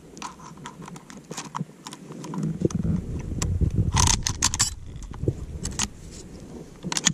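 SKS rifle being loaded from a stripper clip: cartridges are thumbed down into its fixed magazine with metallic clicks and scraping. A quick cluster of sharp clicks comes about four seconds in, and more clicks come near the end.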